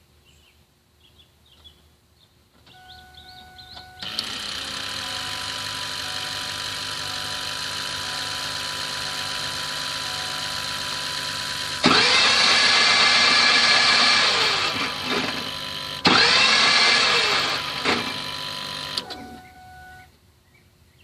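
The starter of a 2007 Ford 6.0 PowerStroke diesel whirs loudly in two bursts of a few seconds each, rising in pitch and winding down, without turning the engine over. In the title this is put down to a broken flywheel no longer connected to the crankshaft. Before the bursts a steady electrical hum with a whine runs after the key is turned on.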